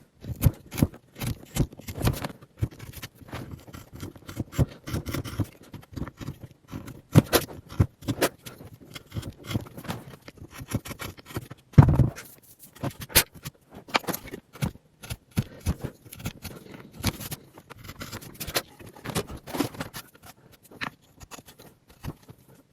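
Irregular tapping, knocking and scraping with no chainsaw running, and one louder, deeper knock about twelve seconds in.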